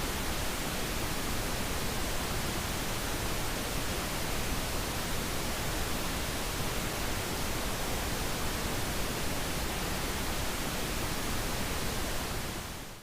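Steady, even hiss with no tone or rhythm in it, fading out near the end.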